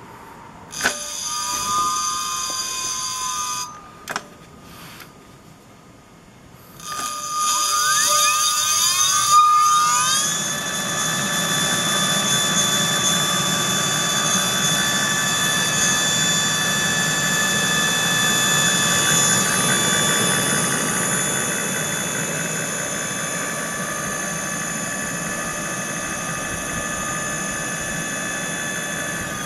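Direct-drive brushless hub motor (48V/52V 1000W) in a 20-inch rear wheel, spinning freely under throttle. A short run-up with a rising whine cuts off after about three seconds with a click; a few seconds later a second run-up climbs to a steady high whine at top speed, near 75 km/h on the display.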